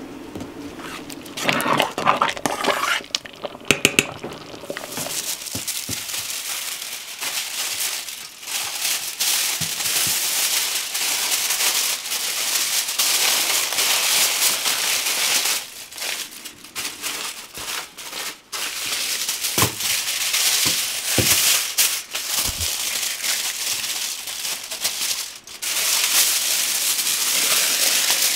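Aluminium foil and baking paper crinkling and rustling in irregular handfuls as they are wrapped and pressed by hand around a whole pumpkin, with short pauses between handlings.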